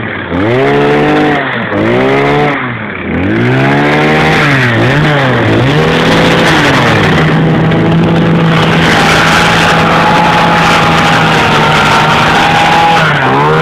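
Two-stroke chainsaw engine revving: the throttle is let off and opened again several times in the first five seconds, then held wide open and steady for about seven seconds, with one more quick drop and pick-up near the end.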